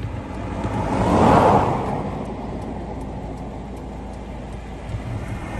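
A road vehicle passing close by: its tyre and engine noise swells to a peak about a second in, then fades away.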